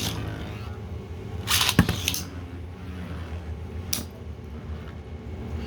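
Beyblade battle in a stadium: a rasping launch burst with a sharp knock about two seconds in, a single sharp click a couple of seconds later, over a low steady hum.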